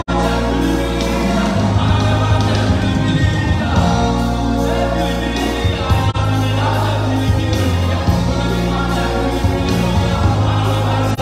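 Live stage music: vocals over a bass-heavy backing track with a steady beat, played loud through a concert sound system.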